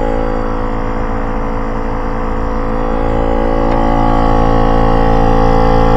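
Portable 12-volt tyre air compressor running steadily while inflating an under-inflated spare wheel: a continuous buzzing hum that grows a little louder toward the end.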